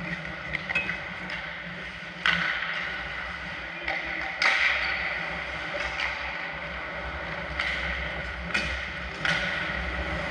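Ice hockey play on the rink: a steady scrape and hiss of skates on the ice, broken by sharp knocks of sticks and puck, the loudest about two and four and a half seconds in, each trailing off into a longer scrape.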